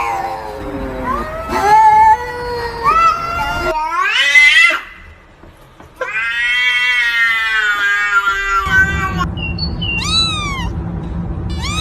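Cats and kittens meowing in a string of separate clips: several short gliding meows, then one long drawn-out meow from about six seconds in to past eight seconds, then high, falling kitten-like meows near the end.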